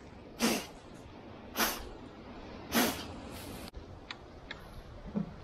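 Three hard puffs of breath blown into cupped hands full of morel mushrooms, each a short rushing gust about a second apart. A few faint ticks and a soft knock follow near the end.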